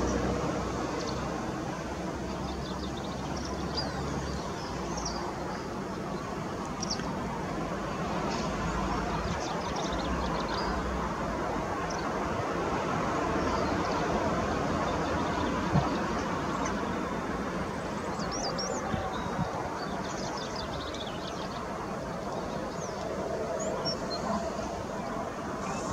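Outdoor background: a steady hum of distant traffic with small birds chirping now and then, and one short click about sixteen seconds in.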